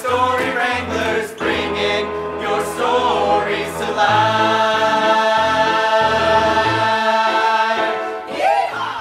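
Group of voices singing with instrumental backing, settling about four seconds in on a long held final chord.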